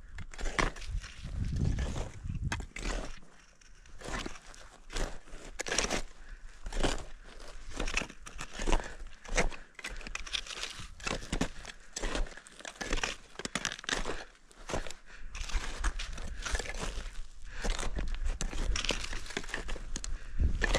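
Hiking footsteps crunching on snow, about two steps a second, with low rumble on the microphone.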